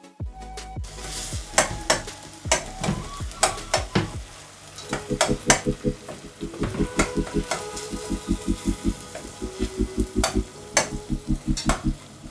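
Food frying in a pan with a sizzling hiss and sharp, irregular clicks of a utensil against the pan. A pulsing background-music beat comes in about four and a half seconds in.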